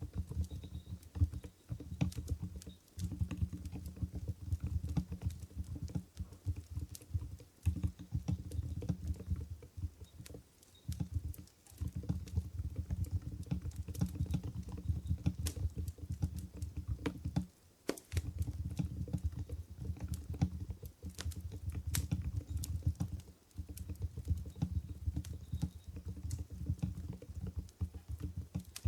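Continuous fast typing on an Mstone Groove GV10 keyboard with silent Coral 45 g switches. The keystrokes are dull and low-pitched rather than clicky, and the typing stops for a moment a few times.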